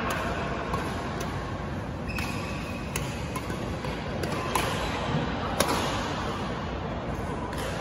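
Badminton rackets striking a shuttlecock in a doubles rally: sharp hits every second or two, the loudest a little past the middle, over the steady background noise of a large sports hall.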